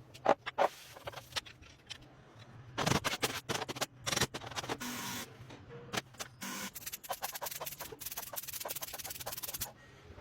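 Workshop handling sounds from reassembling a motorcycle engine: irregular clicks and knocks of metal parts and tools, with scraping stretches and a dense run of rapid clicking in the second half.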